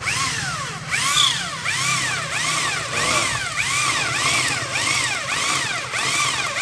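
Electric drill with a 6 mm bit drilling out a rivet on a washing machine spin-dryer motor; the whine rises and falls in pitch over and over, about three times every two seconds, as the bit bites into the rivet.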